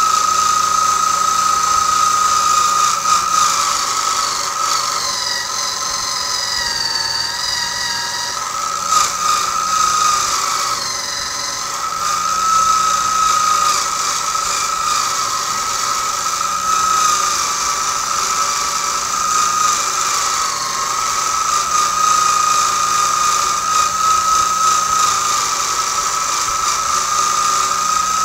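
Bench motor spinning a fine wire carding wheel, steadily brushing a steel rifle barrel and receiver with a whine and a wiry hiss; the whine sags in pitch a few times, most clearly about five seconds in. In rust bluing this carding takes the loose rust off the steel between boiling cycles.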